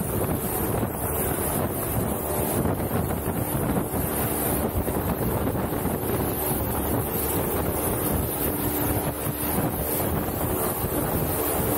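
Propeller aircraft's engines running steadily on the ground, with propwash blowing across the helmet-mounted microphone as a constant rushing wind noise.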